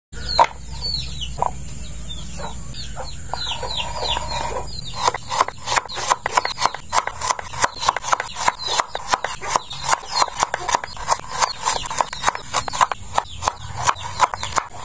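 Kitchen knife chopping shallots, garlic and chillies on a wooden cutting board: sharp, even cuts at about three to four a second, starting about five seconds in. Before that, a run of short falling bird chirps over a low hum.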